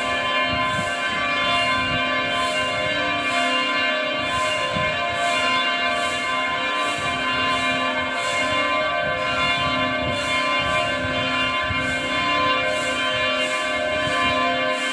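Church bells ringing continuously, struck about twice a second with each stroke's tones ringing on into the next. This is the ringing before the start of Mass, calling people to the service.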